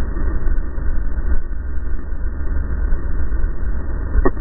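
Racing snowmobile engine running at speed, heard from a camera mounted on the sled, with heavy wind buffeting on the microphone. There is one sharp click near the end.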